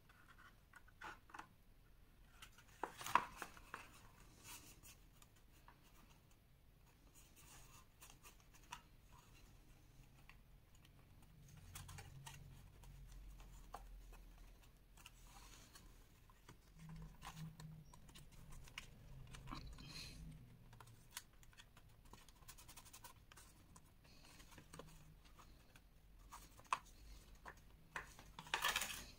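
Faint handling of paper-covered cardboard box pieces: scattered light taps, scrapes and rustles of card against card and the cutting mat, with one sharper tap about three seconds in.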